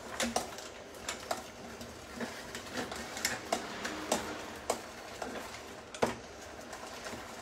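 A metal spoon knocking and scraping against a small steel saucepan in irregular light clinks, about one or two a second, with the sharpest knock about six seconds in.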